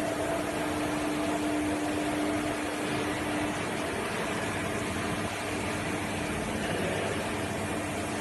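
Multi-wire paper taping machine for flat copper transformer wire running steadily: a constant machine whir with a steady hum tone, which weakens a little about four seconds in.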